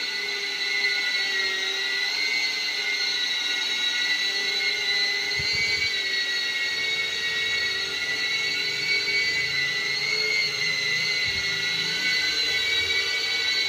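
Cinewhoop FPV drone with Gemfan D51 ducted five-blade propellers, hovering and flying: a steady high-pitched motor and propeller whine whose pitch wavers slightly with throttle.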